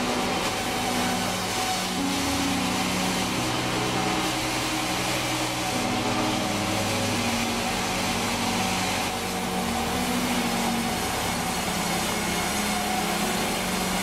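Sawmill band saw running and ripping a long wooden plank lengthwise, a steady loud machine noise.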